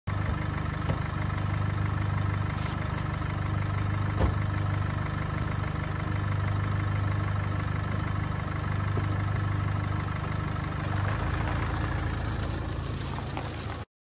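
Nissan X-Trail engine idling with a steady hum; its tone shifts slightly about eleven seconds in, and the sound cuts off suddenly near the end.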